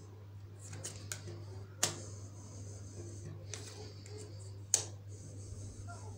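Tarot cards being handled and set down on a glass tabletop: a few sharp clicks, the two loudest about two seconds in and near five seconds in, over a steady low hum.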